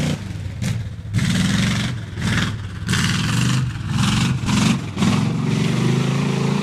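Four-wheel-drive truck engine revving hard in several short surges, each surge bringing a loud rush of noise, typical of wheels spinning through mud.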